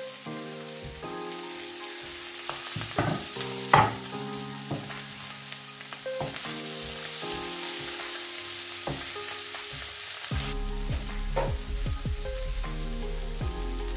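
Omena (small dried fish) with tomato and fresh coriander sizzling in a frying pan. A wooden spatula scrapes and knocks against the pan as the mix is stirred, with one sharper knock about four seconds in.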